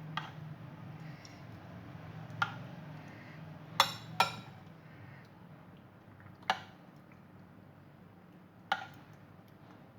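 A kitchen utensil clinking against a dish six times at irregular intervals while spice paste is spread over a raw mutton leg, over a faint steady low hum.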